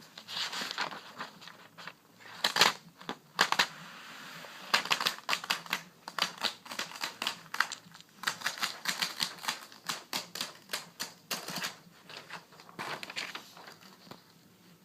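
Quick irregular tapping or clicking on a hard object, several taps a second, in runs with short pauses.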